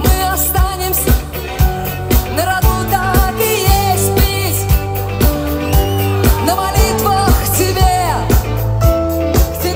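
Live rock band playing through a large PA: a kick drum on a steady beat about twice a second under electric guitar and keyboards, with a woman singing a gliding melody over it.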